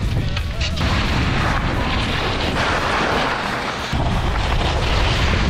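Wind buffeting an action camera's microphone during a fast ski descent, with the hiss and scrape of skis sliding over snow. The noise dips briefly about four seconds in, then resumes.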